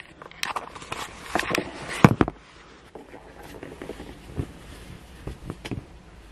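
Handling noise: rustling fabric and a bag with a cluster of clicks and knocks as a hoodie is pulled out and held up. The loudest knock comes about two seconds in, followed by quieter rustling with a few light ticks.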